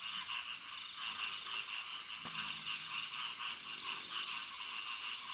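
Outdoor chorus of insects and frogs: a steady, finely pulsing high chirring.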